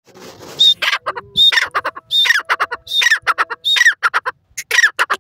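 Grey francolin calling loudly: a fast run of about six harsh, repeated phrases, each a short high note followed by quick falling notes.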